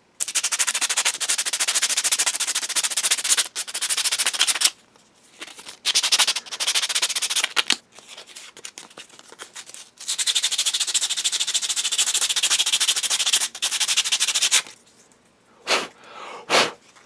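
Sandpaper rubbed by hand over the Feiyue FY06's slipper clutch pad in rapid scratching strokes, in four long spells with short pauses between, then two brief sounds near the end. The worn, greasy pad is being sanded down to give the slipping clutch more grip.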